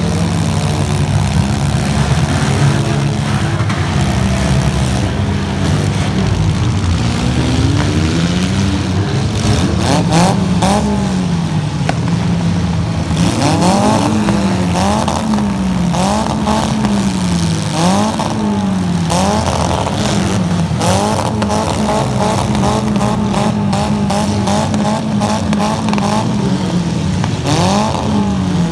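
Demolition derby car engines running hard, one revved up and down over and over at about once a second through the middle, with scattered sharp bangs of cars hitting each other.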